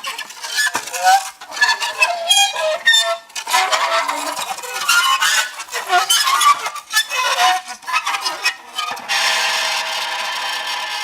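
Dry ice against a bent piece of metal, squealing and chirping in short, wavering, gliding tones that start and stop irregularly. About nine seconds in it settles into one steady buzzing howl.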